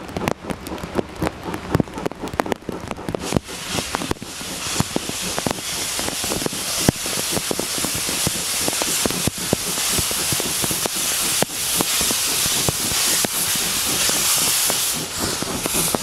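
Steam hissing from the open cylinder drain cocks of double-headed C11 tank locomotives as they approach, building from about four seconds in and dropping away just before the end. Heavy rain patters throughout, with irregular sharp drop taps.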